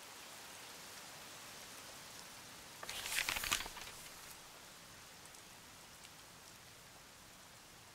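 Steady rain falling, an even hiss of rain ambience. About three seconds in, a brief, louder burst of hiss and crackle rises and fades within a second.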